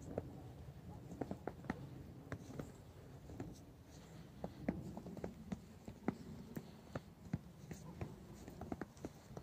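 Faint, irregular crunching and clicking of footsteps on a thin layer of snow.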